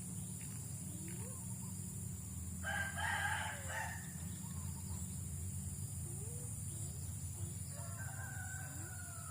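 A rooster crowing, once loudly about three seconds in and again more faintly near the end, over a steady high insect buzz.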